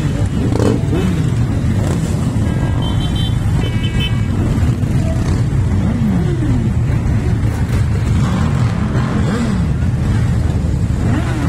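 A long procession of motorcycles passing at low speed, many engines running together as individual bikes rev up and drop back. A horn toots twice about three seconds in.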